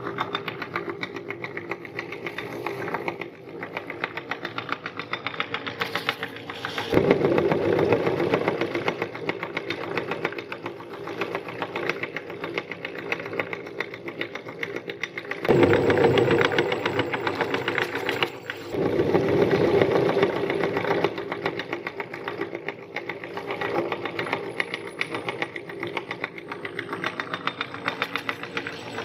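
Electric meat grinder running and crushing round cookies fed through its metal hopper. It makes a fast, steady rattle that grows louder and heavier in two stretches, about a quarter of the way in and again just past the middle, as cookies are ground.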